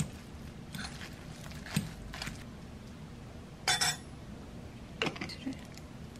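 Metal fork clinking and scraping against a glass mixing bowl as cooked eggs are mashed, a few separate taps. A louder metal-on-glass clatter a little past halfway, then a few lighter clinks of a measuring spoon against the bowl near the end.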